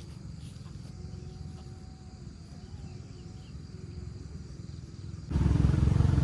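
A steady low rumble with faint thin tones over it. Louder background music cuts in abruptly about five seconds in.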